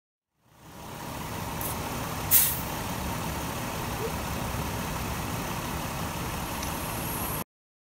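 Vehicle engine idling steadily with the A/C running, and one short, sharp hiss about two seconds in. The sound cuts off suddenly near the end.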